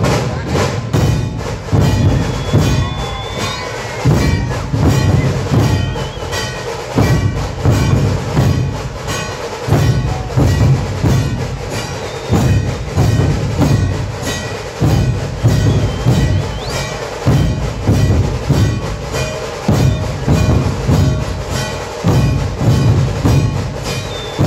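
Dhol-tasha ensemble playing: large barrel-shaped dhol drums struck with sticks give a heavy booming beat in a steady repeating rhythm, under rapid, sharp strokes of tasha drums.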